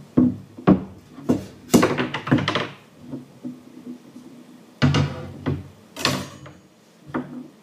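3D-printed yellow PLA parts knocking and clattering as they are knocked off a removable print bed plate and land on a wooden workbench. About ten sharp knocks: a quick run in the first three seconds, then a few more near the end.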